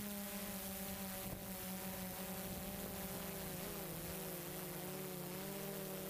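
Multirotor drone's propellers and motors humming steadily with a faint hiss, the pitch wavering slightly a little past the middle as the motors adjust speed.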